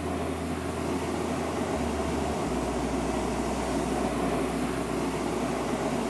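Hot-air balloon's propane burner firing: a steady rushing sound that starts abruptly and holds without a break.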